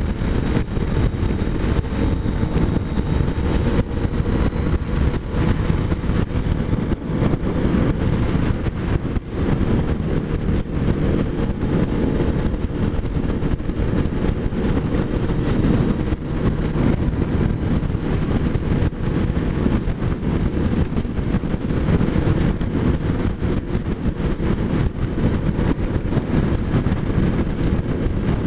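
Kawasaki motorcycle cruising at a steady speed: the engine running evenly under heavy, steady wind and road noise on the rider-mounted camera's microphone.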